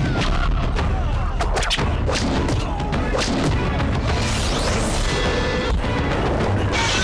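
Film soundtrack: dramatic music under heavy booms and sharp impact effects, with a sweeping effect about four seconds in and a bright crash near the end.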